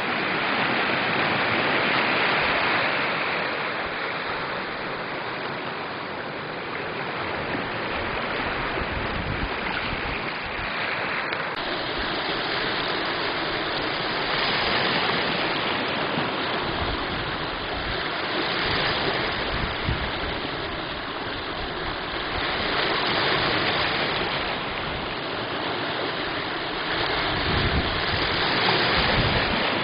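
Small lake waves lapping and washing up onto a sand-and-pebble shore, the rush of water swelling and fading every few seconds.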